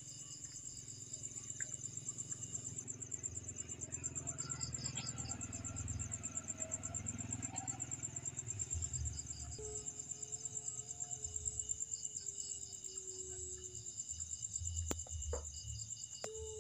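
Night crickets chirring steadily with a fast pulse, while another insect chirps in short runs. About ten seconds in, a steady pitched tone joins for a few seconds, then comes back near the end.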